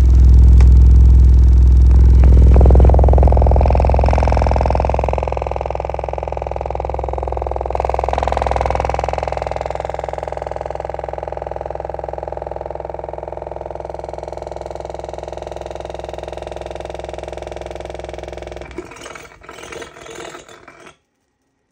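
Subwoofer driven with a loud, steady low bass tone, heavily distorted with a buzzing rattle. About nineteen seconds in the tone breaks into crackling bursts and then cuts out as the overheated driver blows, smoking.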